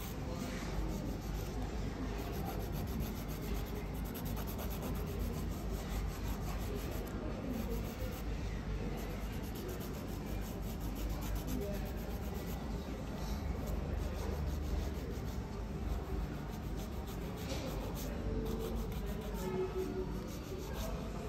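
A nail file rubbing back and forth over nails without a break.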